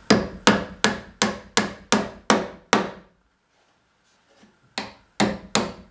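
Hammer driving nails through the wooden top of a birdhouse nesting box into the end grain of the side boards, with about eight steady blows at roughly two and a half a second. The blows stop for about a second and a half, then resume at the same pace near the end.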